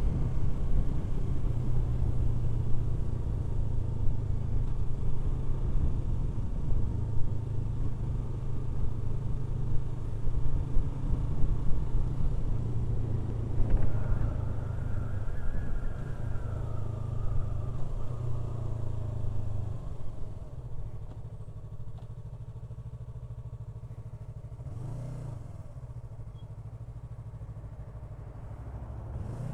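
Yamaha R3 parallel-twin motorcycle running on the move with a steady low rumble; from about 14 seconds in a whine falls in pitch as the bike slows, and around 20 seconds in the rumble drops away, leaving a much quieter background.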